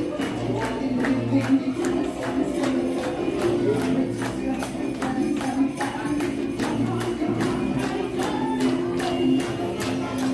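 Music with a quick, steady percussion beat.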